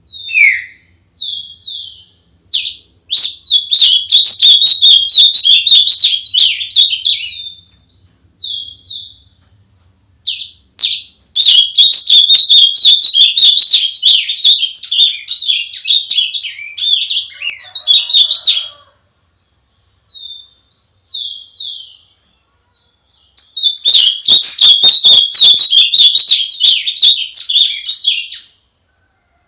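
A songbird singing loud and close, in long rapid warbling phrases of several seconds each, separated by short slurred notes and brief pauses.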